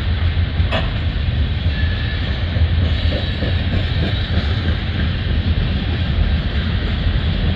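Covered hopper cars of a long freight train rolling past close by: a steady loud rumble of steel wheels on rail, with one sharp click just under a second in.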